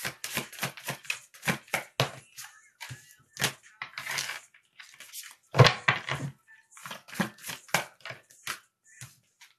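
A deck of tarot cards being shuffled by hand: a fast, irregular run of card slaps and riffles, with a louder flurry about halfway through.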